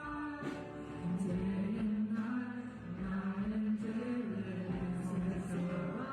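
Slow sung worship music in a church service, voices holding long notes in phrases that step between pitches.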